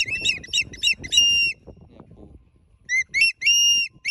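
A tame bird of prey calling: a quick run of shrill whistled notes ending in a longer held scream, then after a pause of about a second and a half a fresh series of longer, level screams.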